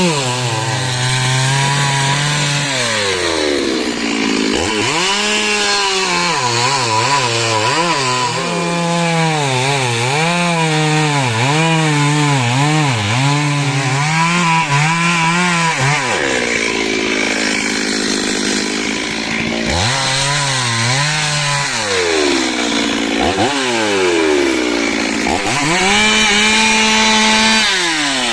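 Stihl two-stroke chainsaw cutting wood, its engine pitch wavering up and down as the chain bites. It drops back toward idle about sixteen seconds in, then is throttled up and cuts again twice more.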